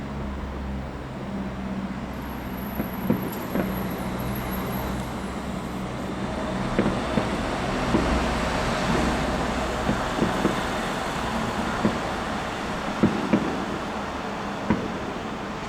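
Fireworks going off: about a dozen sharp bangs and pops at uneven intervals, most of them in the second half, over a steady low rumble and hiss.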